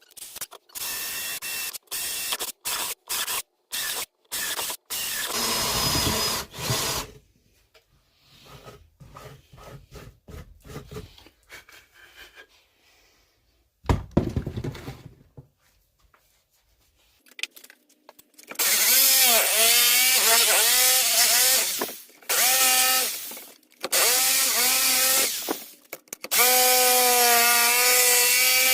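Power drill boring holes in wood. It starts with a string of short trigger bursts. Later come long runs where the motor's whine dips in pitch and recovers as the bit bites, then holds steady near the end.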